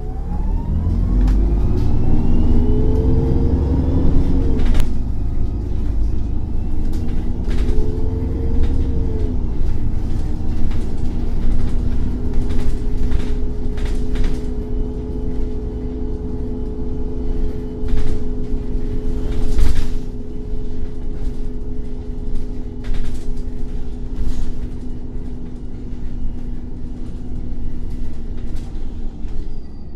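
Irisbus Cityclass bus's Cursor 8 CNG six-cylinder engine pulling away. Its pitch climbs and drops back twice as the Voith automatic gearbox shifts up, then holds steady as the bus cruises, with scattered short knocks and rattles.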